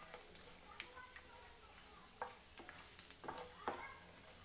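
Cashews and charoli nuts sizzling faintly in hot ghee while a wooden spoon stirs them in a nonstick pan, with a few soft clicks of the spoon against the pan.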